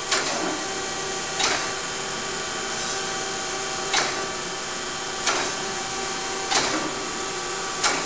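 Chevalier FSG-1224AD hydraulic surface grinder running in automatic mode: a steady hum from the spindle and hydraulic system, with a short sharp noise about every 1.3 seconds, once for each pass of the reciprocating table.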